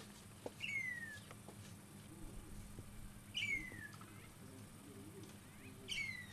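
An animal's high call that slides down in pitch for about half a second, given three times a few seconds apart.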